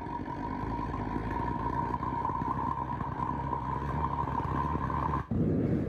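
A blacksmith's forge just lit and running: a steady roar with a high, even whine over it. About five seconds in, the whine and roar cut off abruptly and give way to a louder, lower steady roar.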